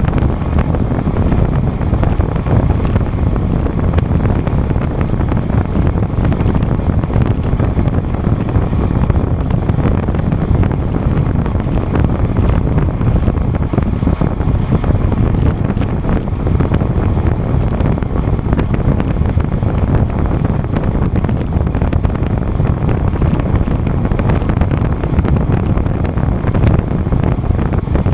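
Loud, steady wind buffeting the microphone of a camera carried on a bicycle at racing speed, a dense low rumble with no let-up.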